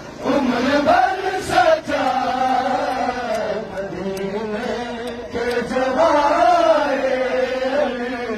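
Male voices chanting a noha, a Shia mourning lament, in long drawn-out notes that slowly rise and fall.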